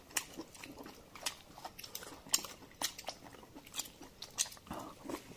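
A person eating boiled dumplings with chopsticks, close to the microphone: chewing with a string of irregular sharp mouth clicks and smacks.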